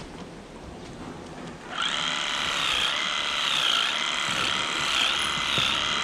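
A small electric motor starts up almost two seconds in and runs with a steady high whine that wavers slightly, after a few faint clicks.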